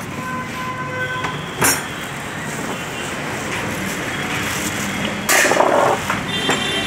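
Clear plastic wrapping rustling and crinkling as it is pulled off a new overlock sewing machine, over steady background noise. A sharp knock comes about one and a half seconds in, and a louder burst of crinkling comes near the end.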